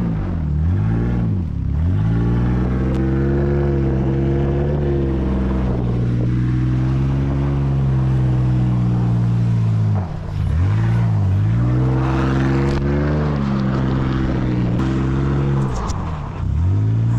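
Car engine running steadily, its pitch dipping sharply and recovering a few times.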